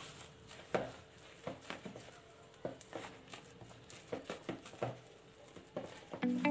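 Spatula scraping and tapping against the side of a mixing bowl while orange food colour is mixed into whipped cream: a string of soft, irregular scrapes and clicks.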